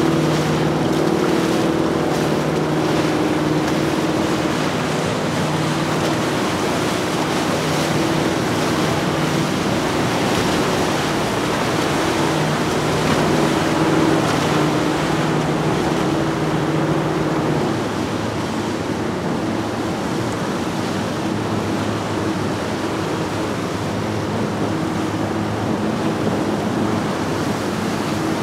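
Twin outboard engines of a Crevalle 33 CSF center console running past at speed, a steady low engine drone over the rush of water off the hull and wind on the microphone. About eighteen seconds in the engine tone changes to a Yamaha 275SD jet boat running by, slightly quieter, with the same water wash.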